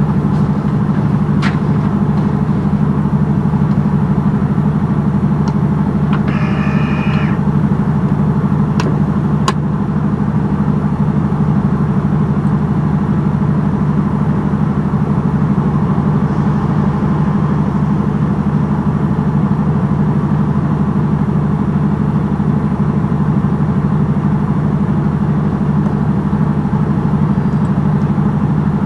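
Semi-truck's diesel engine running steadily, heard from inside the cab, with a few sharp clicks and a brief high-pitched squeal about six and a half seconds in.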